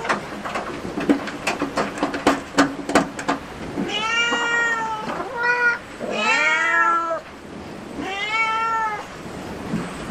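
A domestic cat meows four times, each call rising and then falling in pitch, the second one short. Before the meows, a run of irregular sharp clicks fills the first three seconds.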